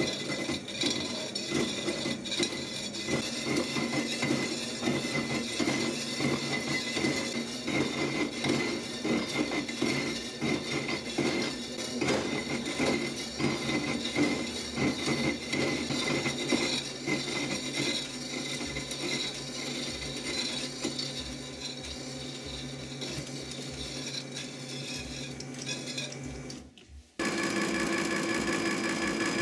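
Lathe running with a milling cutter cutting a 22 mm metal bar held in the vise on the cross slide: a steady machine hum under a dense metallic rattle from the cut. About 27 seconds in it cuts off abruptly, and a different steady machine hum follows.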